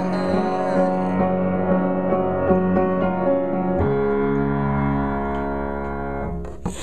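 Instrumental outro of a rock song: sustained chords moving along, then one final chord held from about four seconds in that fades near the end, with a short burst of noise at the very end.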